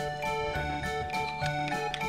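Instrumental background music: held notes over a bass line.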